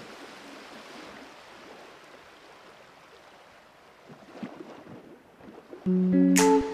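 Steady, faint rushing background noise of outdoor ambience, then a strummed-guitar music track starts loudly near the end.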